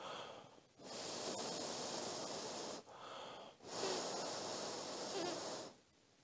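A person blowing on freshly applied glue to help it dry: long breathy blows of about two seconds each, separated by short pauses to breathe in, ending shortly before the end.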